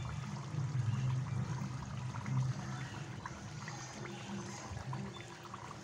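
Puri deep-frying in hot oil in a kadai: the oil sizzles and bubbles with a steady stream of small crackles, over a low background drone.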